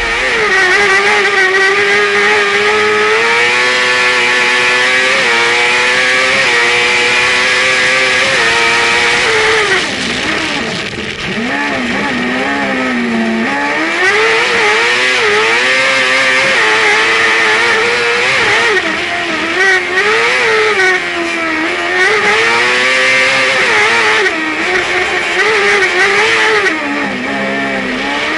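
Onboard sound of a kart cross buggy at racing speed. Its motorcycle-derived engine is revving hard, the pitch climbing in steps through upshifts over the first several seconds. It drops low for a few seconds about ten seconds in, then rises and falls again and again through the corners.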